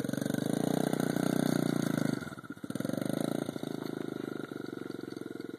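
Small engine of a Sunl 50cc youth quad running under throttle as it rides off. It eases off briefly about two seconds in, picks up again, then grows fainter as the quad moves away.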